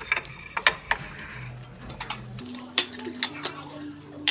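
Utensils clicking against a bowl several times while eating, over soft background music with low held notes.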